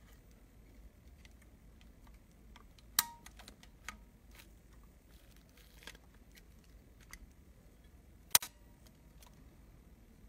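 Small metal clicks and ticks from handling a Konica Pearl folding camera: a sharp click with a brief ring about three seconds in, and a louder sharp click about eight seconds in as the camera is folded shut.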